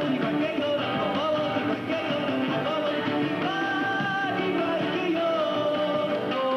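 A singer performing a song live, with held, gliding notes over a strummed acoustic guitar, amplified through a hall's sound system.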